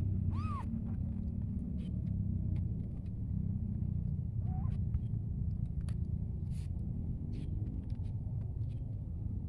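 Steady low rumble of a vehicle engine running nearby. A kitten gives a short meow about half a second in and a fainter one at about four and a half seconds, over small clicks as it eats dry cat food.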